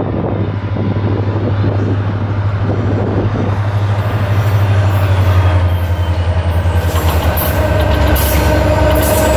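EMD SD40 diesel locomotive's V16 two-stroke engine running with a steady low drone, growing louder as the locomotive approaches hauling hopper cars. From about six seconds in, high wheel squeal joins it, and clicks from the rails build as it comes near.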